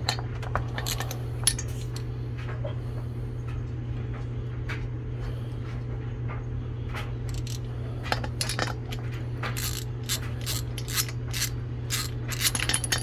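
Socket and ratchet turning a spark plug into a new air-cooled cylinder head: scattered light metallic clicks and taps that come thick and fast from about eight seconds in, over a steady low hum.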